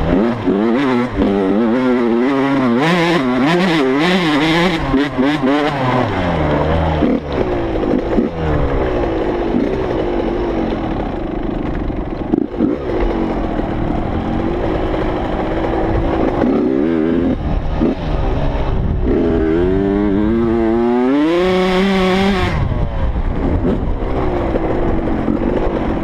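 Dirt bike engine revving up and down as it is ridden over rough dirt, heard from a helmet-mounted camera. The pitch rises and falls quickly through the first few seconds, holds steadier in the middle, and climbs to a high rev about three quarters of the way through before dropping.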